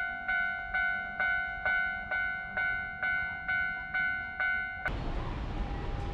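Japanese railway level-crossing warning bell ringing, a pitched ding repeated about twice a second with each strike fading. Nearly five seconds in it cuts off suddenly to steady background noise.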